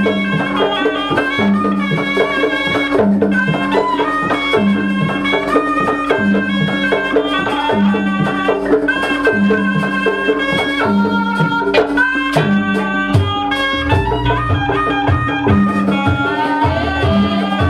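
Javanese Jaranan Buto dance music: a wind-instrument melody over drums and a repeating low beat. Heavier bass drumming comes in near the end.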